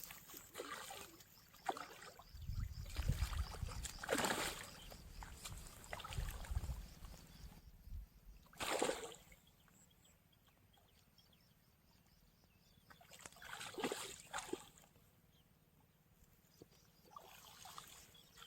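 Water sloshing and splashing in a few separate bursts, with a low rumble for a few seconds early on and a silent stretch in the middle.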